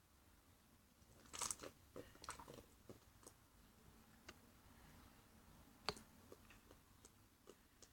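Clicky slime being squished and poked by hand, faint scattered clicks and small pops. There is a louder crackly squelch about one and a half seconds in, another shortly after, and a sharp click near six seconds.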